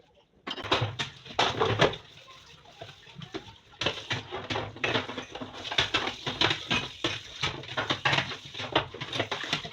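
Rapid clattering and scrubbing strokes of kitchen cleaning, in two spells: a short one near the start and a longer, busier one from about four seconds in.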